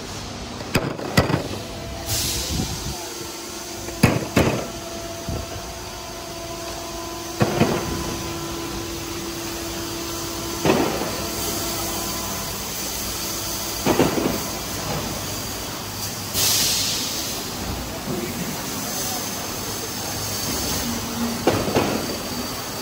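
Yawei PET preform injection moulding machines running: a steady machine noise with clanks and knocks every few seconds and two short hisses, about two seconds in and again after sixteen seconds.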